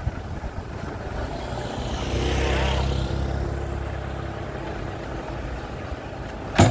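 A motor vehicle passing, its engine growing louder to a peak about two and a half seconds in and then fading away. A single sharp knock near the end.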